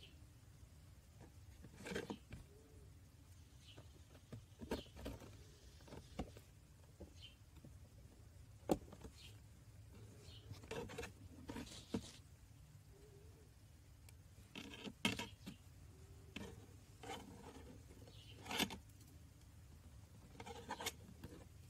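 Fingers handling and bending thin jewelry wire: irregular small clicks, ticks and rustling scrapes, a few sharper clicks standing out, over a faint low hum.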